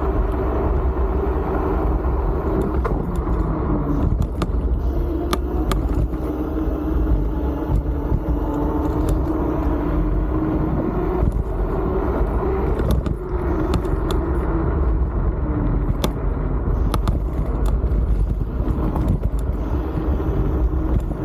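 Wolf King GT Pro scooter being ridden, a steady low rumble of wind on the microphone over a motor tone that wavers up and down with speed, with a few scattered clicks.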